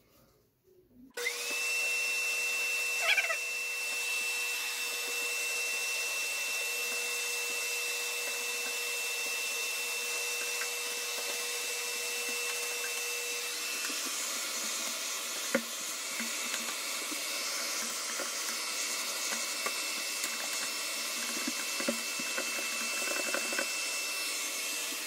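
Vacuum cleaner switched on about a second in and running steadily with a high whine, its extension-wand nozzle sucking dust out of a bathroom ceiling exhaust fan. A few brief knocks sound along the way.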